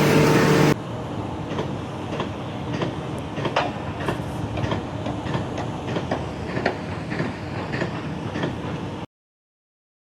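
Steady machinery noise with irregular clattering knocks, cutting off abruptly to silence about nine seconds in.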